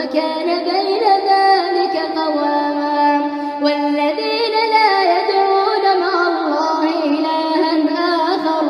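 Quran recitation: a single voice chanting verses in long, drawn-out melodic phrases, holding and bending its notes.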